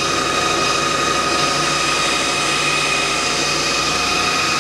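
Hammond OD-2 cylindrical belt grinder/finisher running, with the 7-1/2 HP spindle motor driving the abrasive belt and the rubber regulating wheel turning. It makes a steady machine hum with a clear high-pitched tone through it.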